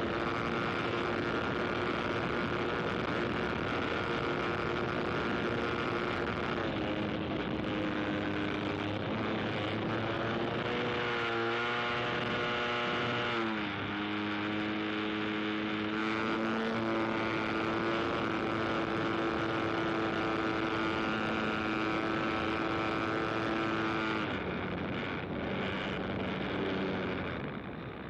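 Propeller aircraft engine running in flight. Its pitch rises and then drops sharply about halfway through as it passes by, then holds steady.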